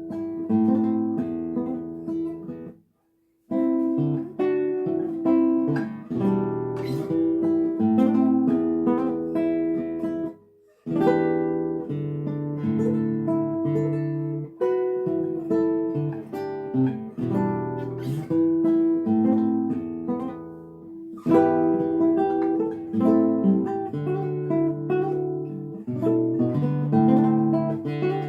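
Solo acoustic guitar playing a piece of plucked notes and chords, with a brief silent break about three seconds in and a short pause around ten seconds.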